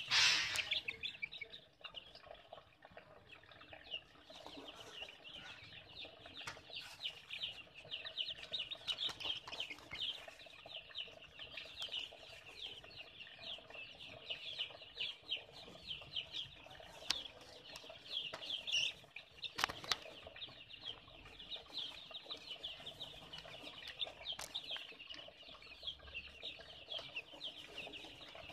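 A large brood of young chicks peeping continuously, many short high chirps overlapping. A brief loud noise comes right at the start, and a few sharp clicks come later.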